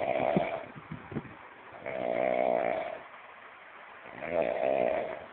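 A person snoring. The tail of one snore comes at the start, with a few short clicks in the first second, then two long snores about two seconds apart, each lasting about a second.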